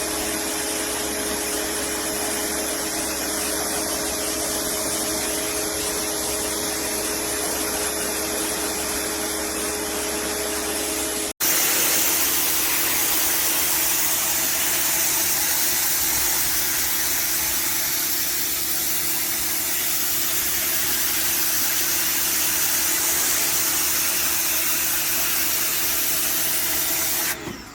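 Steelite electric pressure washer running. A steady motor-and-pump hum sits under the hiss of its water jet spraying concrete sidewalk. About eleven seconds in the sound cuts and comes back louder with more hiss, then stops suddenly near the end.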